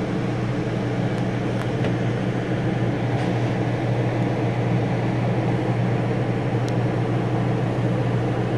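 Truck camper's air conditioner running: a steady low hum under an even rush of air.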